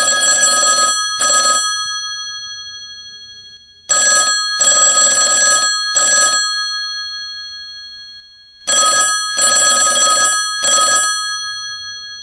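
Telephone bell ringing: three rings about five seconds apart, the first already going at the start. Each ring is a few quick bursts of the bell, whose tone hangs on and fades away before the next ring.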